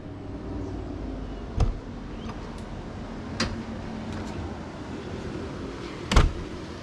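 A few sharp knocks, the loudest near the end, over a steady low hum.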